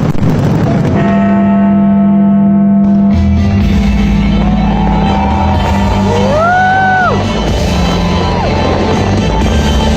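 Loud rock-style music with guitar, from the fireworks show soundtrack. A single bang near the start, a heavier low beat coming in about three seconds in, and gliding tones that rise, hold and fall in the middle.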